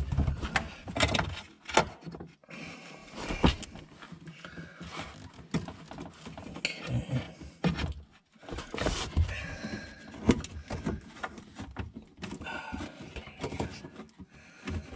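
Irregular clicks, knocks and rubbing as hands handle the fuel hoses, wiring and metal hose clamps on a car's in-tank fuel pump assembly.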